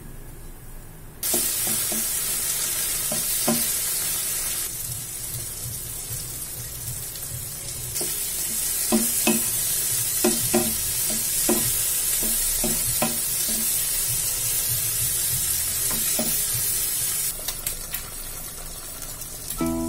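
Food sizzling in hot oil in a frying pan, with a spatula stirring and knocking against the pan. The sizzle starts abruptly about a second in and shifts in level a few times.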